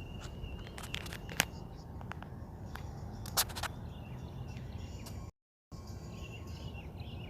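Outdoor ambience with a steady low rumble and a few sharp clicks, with faint bird chirps near the end. The sound cuts out completely for a moment just past the middle.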